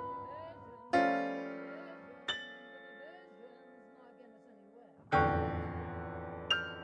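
Slow piano music: sustained chords struck a few seconds apart, each ringing out and fading before the next.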